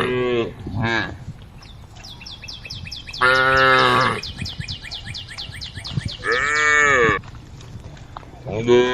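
Cows mooing in turn, about four calls, each lasting about a second, with a short one near the start.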